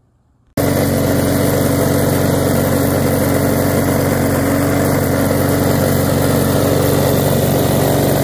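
Walk-behind lawn mower's small engine running at a steady speed, cutting in abruptly about half a second in.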